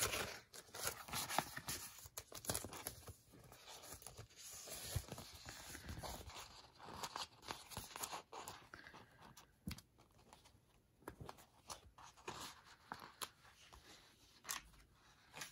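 Quiet paper handling: small planner stickers peeled off their backing sheet with soft tearing and crinkling, and pressed onto the planner pages with light taps and rubs. The rustling is busier in the first nine seconds and sparser after.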